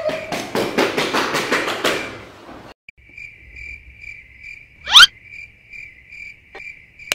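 A dog pants quickly and rhythmically for a couple of seconds, then the sound cuts off abruptly. A steady pulsing crickets-chirping sound effect follows, the comic 'awkward silence' cue, with one loud rising whoosh about five seconds in.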